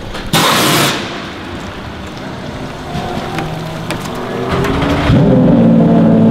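Porsche 991.2 RSR's 4-litre flat-six, on open exhaust, running at low revs. It comes up about three seconds in, dips and rises in pitch once, then runs loud and steady from about five seconds in. Near the start there is a loud half-second blast of hiss.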